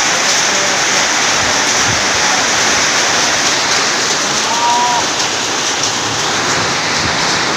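Heavy hail and rain pelting down in a dense, steady hiss. A short pitched sound comes about halfway through.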